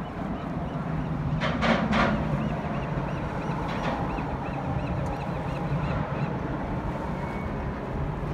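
Steady wind and water noise aboard a small sailboat under way, with a low steady rumble of traffic on the bridge overhead. About a second and a half in come three short sharp sounds in quick succession.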